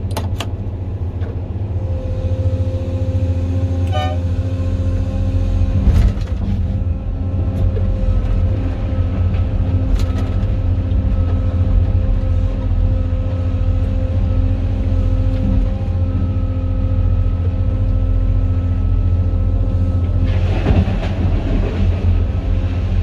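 Cat 390F L excavator's C18 diesel engine and hydraulics working steadily under load, heard from inside the cab, with a few sharp knocks. About twenty seconds in, blasted limestone rattles out of the bucket into the steel bed of a dump truck.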